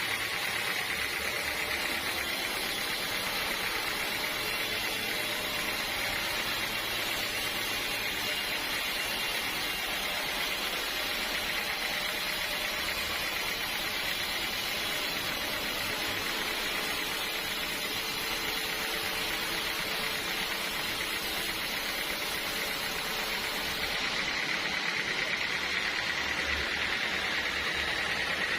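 Sawmill machinery running steadily, a continuous hissing drone with a high hum in it. Near the end the top of the hiss thins out and the hum grows a little stronger.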